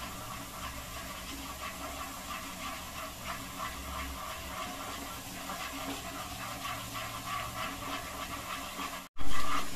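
Spiced water boiling in a non-stick kadhai while gram flour is sprinkled in and stirred continuously with a rolling pin: a steady hiss and bubbling with soft stirring scrapes. Near the end the sound cuts out for an instant and comes back louder.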